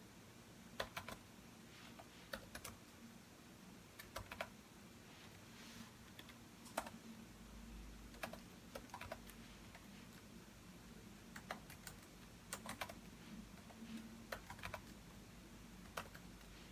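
Computer keyboard typing in short, sparse bursts of a few keystrokes, with pauses of a second or two between them.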